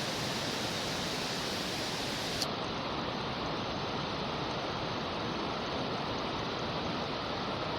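Steady rushing of a mountain stream, an even noise with no break. A small click about two and a half seconds in, after which the sound is duller.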